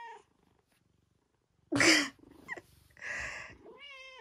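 A tabby kitten mewing, captioned as saying it is hungry: one mew trails off just after the start and another comes near the end. About two seconds in there is a short, loud, breathy burst, the loudest sound here.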